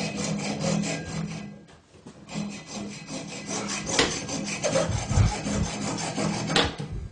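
Hacksaw cutting through an old brass tub faucet stem in quick back-and-forth strokes, with a short pause about two seconds in. There are a couple of sharp clicks in the second half.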